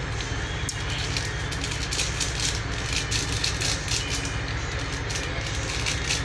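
Powdered seasoning shaken and tapped out of a foil sachet into a bowl of chopped vegetables, a run of light crinkling and rattling ticks. Under it runs a steady low background rumble.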